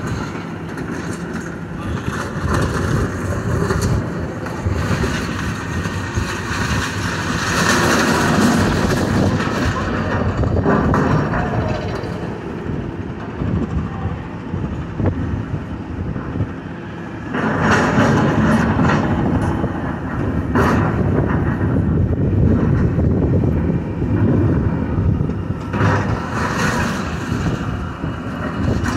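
Tracked demolition excavator running as its grapple drags and crunches through metal and concrete rubble. Louder scraping, clattering surges come several times, with a sharp knock a little past two-thirds of the way through.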